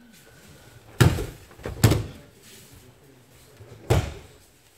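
Bodies hitting foam dojo mats as aikido partners are thrown and take breakfalls: a loud thud about a second in, two more just before two seconds, and another near four seconds.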